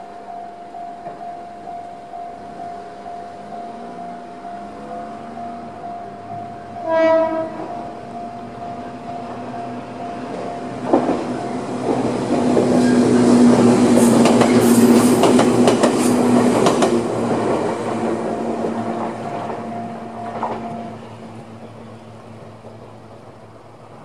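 Level-crossing alarm ringing steadily with its electronic JR East Tohoku-type tone. A short horn blast sounds about seven seconds in, then a Joshin Electric Railway 250-series two-car electric train runs over the crossing with a rumble and clicking rail joints, loudest midway. The alarm stops a few seconds before the end.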